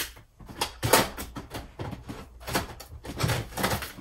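Handling noises on a desk: a string of knocks, taps and rustles as stationery is picked up and moved about, with the loudest knock about a second in.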